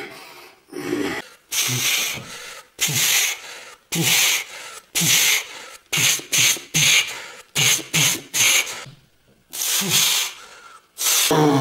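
A man's forceful, breathy exhalations, puffed out about once a second and coming faster in the middle, some with a short low grunt.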